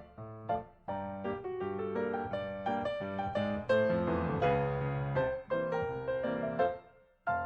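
Background piano music: a melodic run of notes that pauses briefly near the end before resuming.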